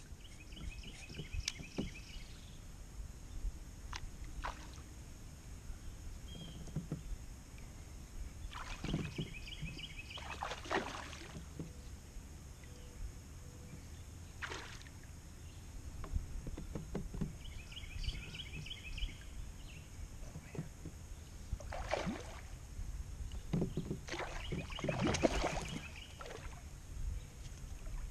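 Water sloshing against a kayak hull with a steady low rumble and several splashes, broken four times by short runs of rapid clicking from a fishing reel while a pickerel is being fought on the line.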